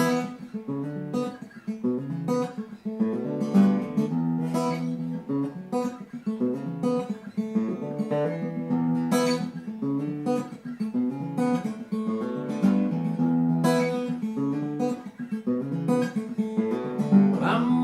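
Solo acoustic guitar playing the instrumental intro of a folk song, chords strummed and picked in a steady rhythm.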